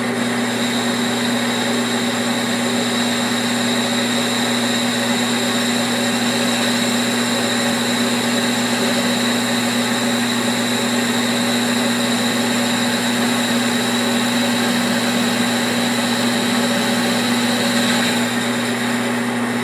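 Metal lathe running a steady cutting pass, machining down the cold-formed end of a wheel hub bearing's inner hub: an even motor hum and whine with the hiss of the cut, unchanging throughout.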